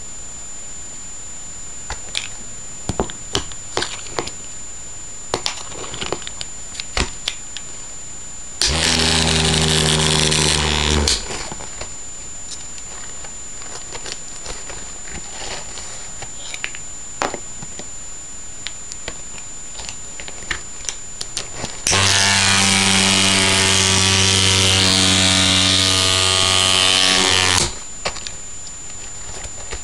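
Homemade bristlebot, a scrub brush shaken by a small vibration motor, buzzing loudly twice: once for about two and a half seconds, then later for about six seconds, starting and stopping abruptly. Scattered clicks and taps between the runs as it is handled.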